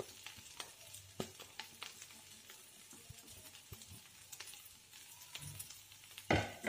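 Faint sizzling with scattered sharp crackles from a spice tempering of hot oil, mustard seeds and curry leaves in a steel frying pan, as mashed potatoes are pushed into it.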